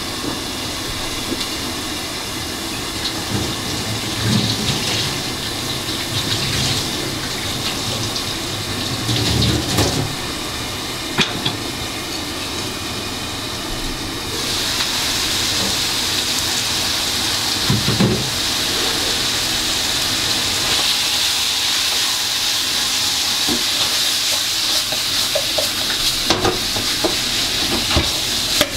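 Food sizzling in a cooking pot, a steady hiss with occasional short knocks of a utensil; the sizzle turns louder and brighter about halfway through.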